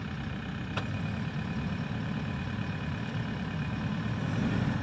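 Car engine running hard as the driver tries to drive out of deep sand, getting a little louder near the end; the car is stuck and the buried wheel does not move. A single sharp click about a second in.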